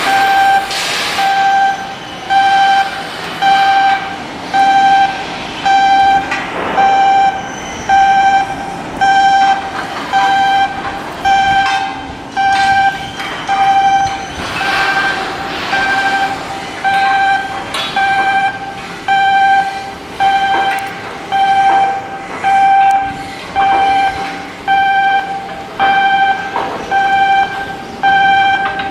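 An electronic warning beeper sounding a steady pitched beep about once a second, over background work noise with occasional knocks.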